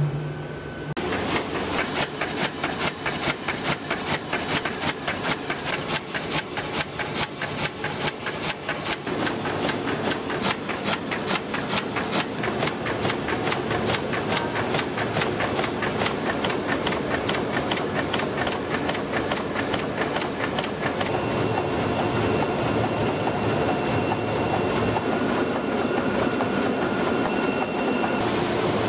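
Heidelberg Speedmaster sheet-fed offset printing press running with sheets feeding through it: a fast, even mechanical clatter of about four beats a second. About two-thirds of the way in it gives way to a steadier machine whir with a faint high whine.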